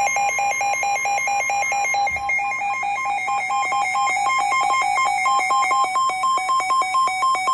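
Weather radio receiver's electronic alert alarm sounding for a warning: rapid beeping that alternates between two pitches. About two seconds in, the beeping changes to a quicker high-low alternation.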